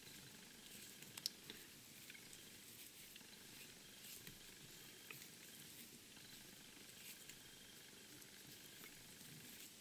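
Near silence: faint room hiss with soft rustles and a few small clicks, the sharpest about a second in, from hands wrapping and stroking back synthetic fly-tying body fibres on a hook in a vise.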